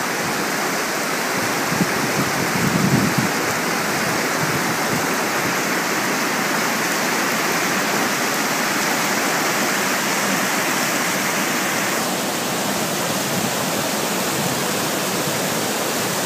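River whitewater rapids rushing steadily over a rock-arch drop at about 925 cfs, a continuous loud roar of churning water. The brighter part of the rush eases slightly about twelve seconds in.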